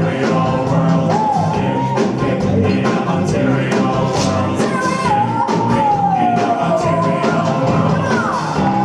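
Live band playing rock-style music: a voice sings a gliding melody over drums and regular cymbal hits.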